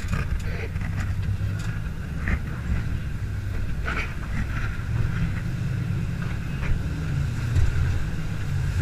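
Jet boat under way, its engine and jet drive running steadily with a low rumble and a higher whine, and a few short knocks as the hull meets the water.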